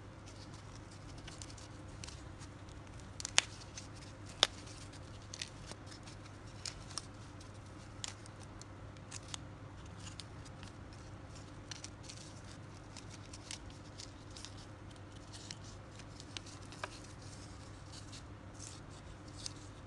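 Scattered small clicks and ticks of fishing hooks and line being handled on a foam float, with two sharper clicks about a second apart a few seconds in, over a faint steady hum.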